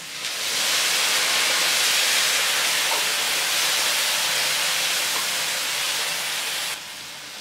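Water poured into a hot frying pan of sautéed vegetables, hissing steadily as it flashes to steam while the vegetables are stirred with a wooden spatula. The hiss cuts off suddenly near the end.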